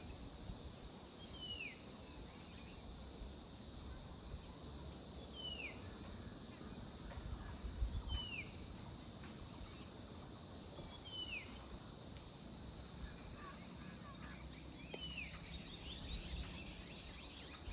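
Steady high-pitched insect chorus of crickets or cicadas, with fast ticking running through it. Over it, a bird repeats a short falling call every two to four seconds.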